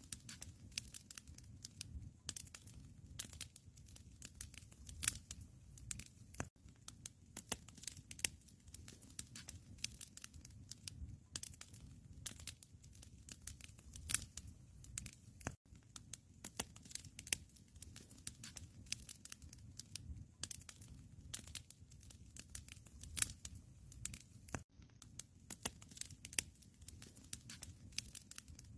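Wood fire crackling in a fireplace: a dense, irregular run of small pops and snaps over a low, steady rumble.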